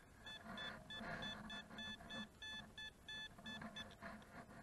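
A Teknetics Minuteman metal detector sounds a quick string of short high-pitched beeps, about three a second, all at the same pitch, as the coil is swept back and forth over a buried target. The readings are an iffy signal whose target ID bounces around.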